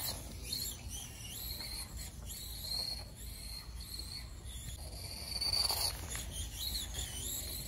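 Electric motors of 1/28-scale Mini-Z RC cars whining high as they lap the track, the pitch dipping and rising again and again with throttle and braking.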